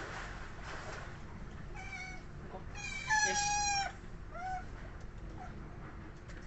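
Asian small-clawed otters calling: a couple of short chirps, then one loud, long, high call about three seconds in, and a brief chirp after it.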